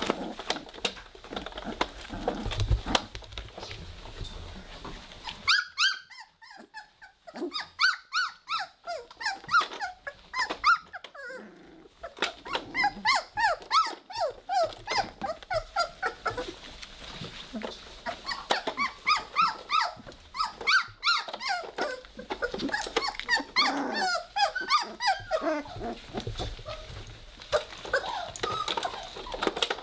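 Three-week-old Weimaraner puppies play-fighting, giving many short high-pitched squeals and yelps in quick runs, with some low puppy growling.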